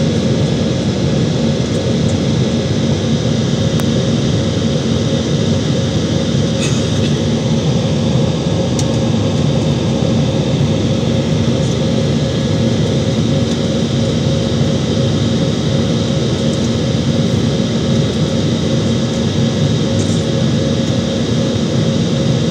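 Cabin noise inside an Airbus A320-family airliner climbing after takeoff: a loud, steady roar of the jet engines and airflow with a constant low hum, and a few faint ticks.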